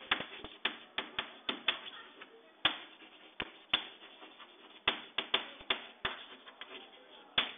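Chalk writing on a blackboard: a run of irregular sharp taps, a few a second, with faint scratching between them as the words are written.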